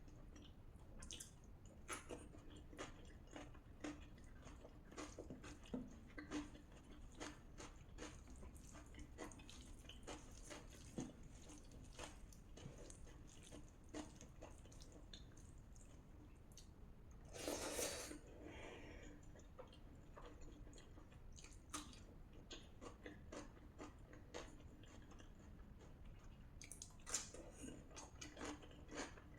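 A person chewing mouthfuls of rajma and rice close to the microphone: many small wet clicks and squishes. About halfway through comes a single louder, half-second rush of noise.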